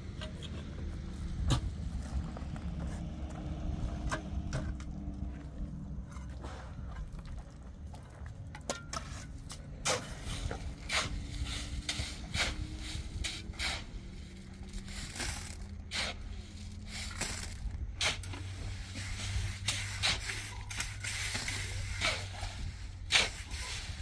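A motor running with a steady low hum whose pitch drifts slowly, with many sharp clicks and knocks, coming thickly from about ten seconds in.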